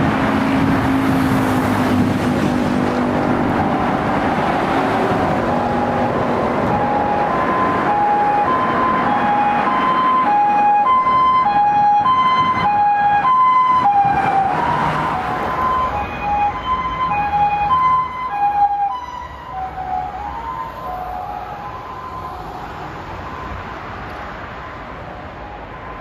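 Japanese ambulance two-tone siren alternating a high and a low note (the "pii-poo" pattern), heard over traffic noise. It grows louder as the ambulance approaches, drops a little in pitch as it passes, and fades away.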